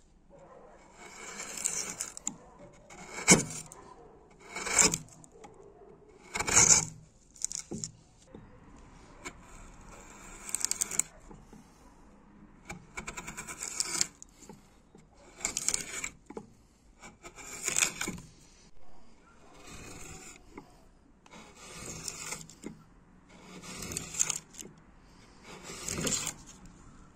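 Repeated short scraping strokes of a hand-forged fishtail gouge, about one every one and a half to two seconds.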